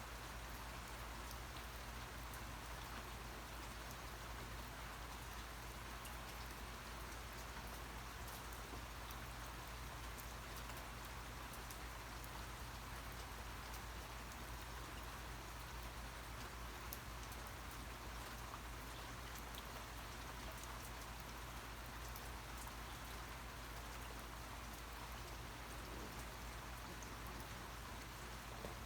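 Steady rain falling, an even hiss of many small drops pattering on a surface.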